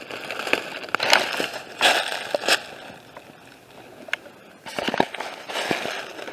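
Footsteps crunching through dry leaves, dead bracken and twigs, with crackling and rustling at each step, roughly one a second. The steps go quieter for a moment midway, then pick up again.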